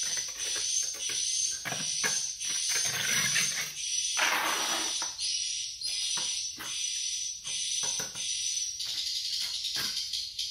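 A hand scraper scraping dried swiftlet droppings off a concrete floor in short, irregular strokes, over a steady high-pitched chirring.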